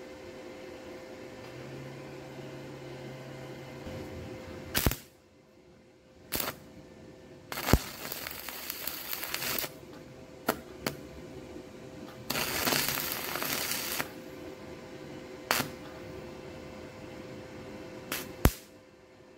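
Stick welding with 3/32-inch 308L stainless electrodes: the arc crackles and hisses in two short bursts of about two seconds each, with sharp single snaps before, between and after them.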